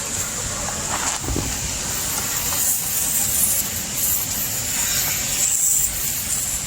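Steady hiss of rain falling, with a few soft knocks and rubbing about a second in as a tire-plug reaming tool is worked into a screw hole in the tire.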